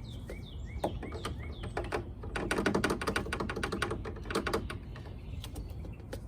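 A rapid run of sharp clicks, about ten a second, through the middle, with scattered clicks before and after, while small birds chirp with short rising calls.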